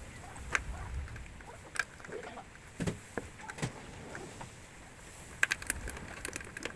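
Scattered clicks and light knocks of work being done by hand, with a quick run of clicks about five and a half seconds in.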